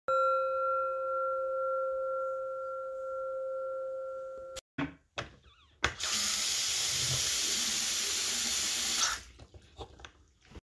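A bell-like ringing tone, like a struck meditation singing bowl, sounds steadily and slowly fades, then cuts off suddenly after about four and a half seconds. A few sharp clicks follow, then water runs from a tap for about three seconds and stops, followed by a few small knocks.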